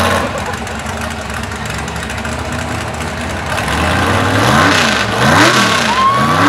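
Mega truck engine running steadily, then revved up and back down three times in quick succession over the last two seconds.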